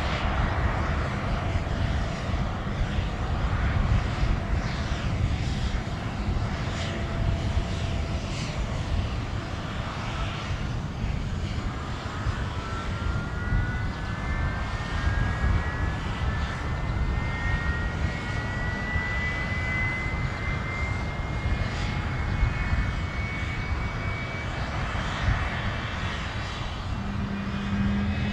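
Boeing 767-300ER's turbofan engines running on the ground with a steady deep rumble. From about halfway through, a jet whine rises slowly in pitch as the engines spool up.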